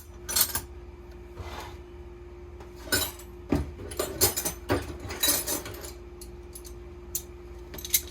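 Steel wrenches clinking and clanking against each other at irregular intervals as they are picked up and set down in a pile of hand tools.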